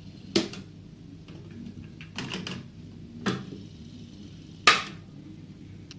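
Sharp mechanical clicks and clunks from a Hitachi TRK-3D30 radio-cassette recorder being handled and its controls worked: four separate ones a second or so apart, the second a quick double, the last the loudest.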